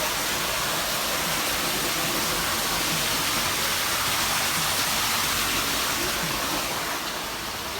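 Steady rushing of a waterfall, a constant hiss of falling water that eases slightly near the end.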